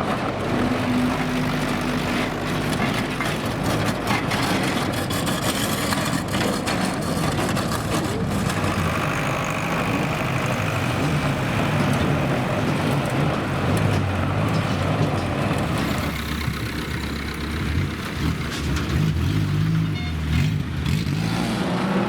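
Banger racing cars' engines running and revving on the track, several at once, rising and falling in pitch, with scattered sharp knocks.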